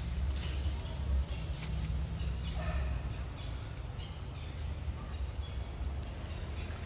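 Steady, high-pitched drone of insects in the forest, over a low rumble on the microphone, with a few faint clicks.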